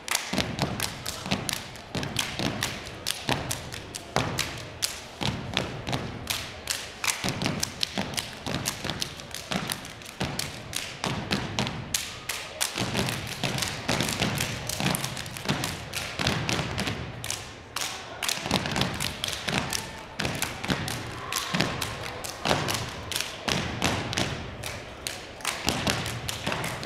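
A step team stomping and clapping in unison on a hardwood gym floor: a fast, rhythmic run of sharp thuds and slaps, with no music.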